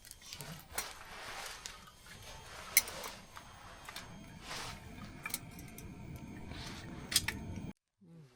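Scattered clinks and taps of utensils and dishes at a camp meal, with one sharp clink about three seconds in and two more near the end, then the sound cuts off abruptly.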